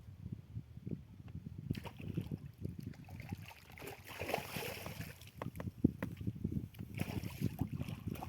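Water lapping and sloshing against a small fishing boat, with irregular low knocks; a brighter splashing noise joins about two seconds in.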